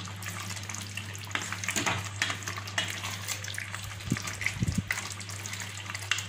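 Wooden spatula stirring a simmering milky vegetable curry (sukto) in a pan: wet sizzling and sloshing with irregular knocks and scrapes of the spatula against the pan.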